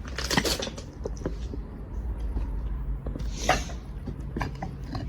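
Scattered knocks and clicks with two short scraping crunches, about half a second and three and a half seconds in: footsteps and handling noise among debris.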